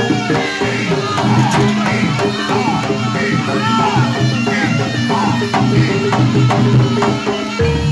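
Javanese jaranan gamelan music: kendang drums and metallophones keep a steady beat under held pitched tones, with a wavering melodic line gliding up and down above them.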